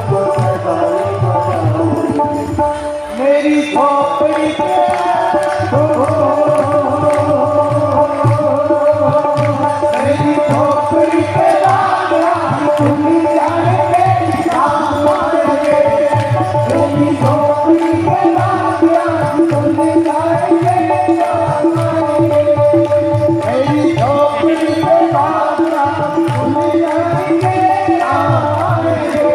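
Devotional bhajan music played live through a loudspeaker system: tabla keeping the rhythm under a wavering melody, with some singing.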